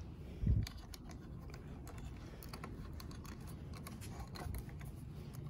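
Faint, scattered small clicks and taps of crimped wire terminals and wires being handled and fitted onto a toggle switch on a metal frame, with one soft low thump about half a second in.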